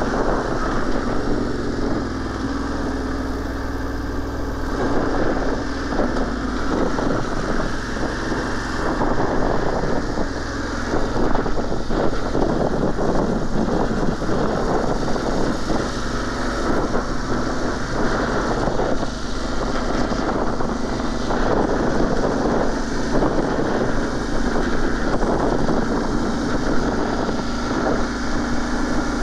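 Motorcycle engine running steadily while riding, with wind buffeting the microphone.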